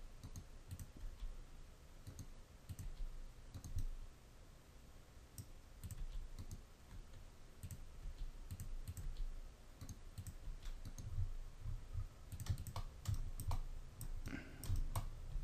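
Scattered light clicks of a computer keyboard and mouse as keys are tapped over and over, with a quicker cluster of clicks near the end.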